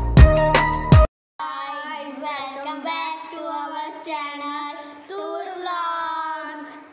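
A beat-driven intro jingle with heavy drum hits, cutting off suddenly about a second in; then two young girls singing a tune together, unaccompanied.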